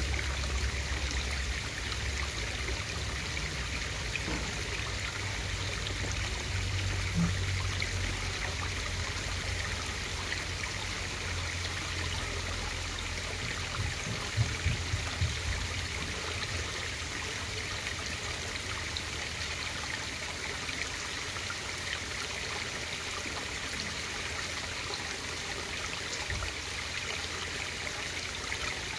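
Steady trickle of running water in a garden pond, picked up by a submerged camera, with a low rumble beneath it. A few short low thumps come close together about halfway through.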